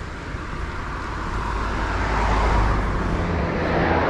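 A road vehicle passing by, its noise swelling to a peak a little past halfway and then fading, over a low rumble.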